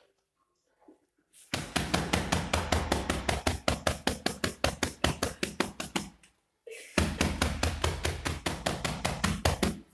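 Rapid rhythmic percussive massage strikes on the body, about six dull knocks a second. They start about a second and a half in, pause briefly around the middle, then carry on.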